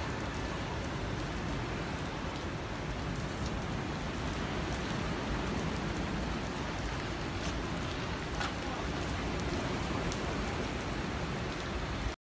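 Steady hiss of heavy rain with a deep rumble underneath, cutting off suddenly near the end.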